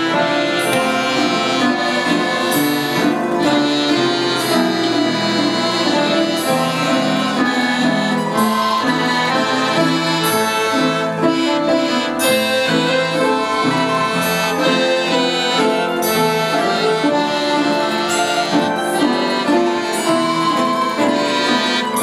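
An orchestra playing a piece without pause, many instruments sounding together.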